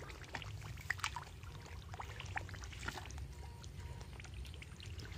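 Water trickling and splashing in a muddy, half-drained fish pond, with many small irregular splashes over a steady low hum.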